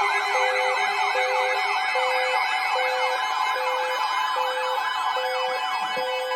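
Electronic siren in a rapid yelp, sweeping up and down about four or five times a second. A lower electronic beep repeats a little more than once a second underneath, over steady background tones.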